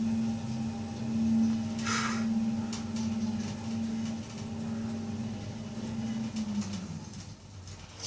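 Lift car travelling with a steady low machine hum from its drive, which sags in pitch and fades about seven seconds in as the car comes to a stop. A short hiss comes about two seconds in.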